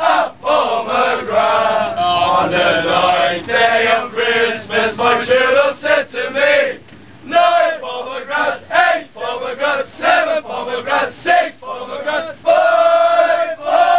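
A group of male football fans singing a chant together, loud and unaccompanied, inside a crowded tram carriage. The singing breaks off briefly about seven seconds in, then starts up again.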